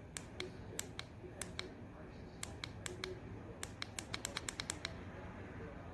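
A run of sharp clicks, irregular and some in quick pairs, coming thick and fast for about a second and a half past the middle, over a faint steady low hum.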